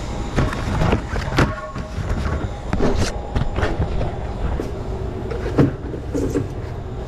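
Metal cart loaded with soda cases rolling over a hard store floor: a steady rumble with rattling and scattered knocks.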